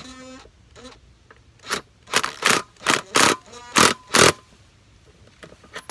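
A series of short, harsh scrapes, about seven in two and a half seconds, as the scissor jack and plywood block are shifted into place under the lawn tractor tire.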